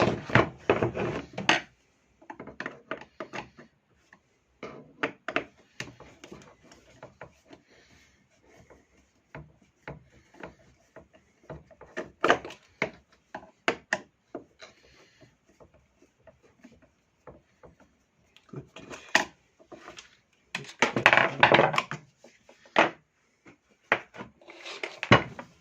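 Scattered clicks, knocks and rubbing of a screwdriver and screws against the plastic housing of a Makita electric chainsaw being unscrewed, with two busier stretches of rattling, at the start and about 21 seconds in.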